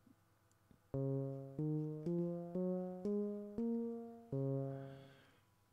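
Moog Mavis analog synthesizer played from the Werkstatt's keyboard CV and gate: seven sharp-attacked, decaying notes starting about a second in. The first six step upward in pitch, then a seventh drops back to the low starting note and fades out.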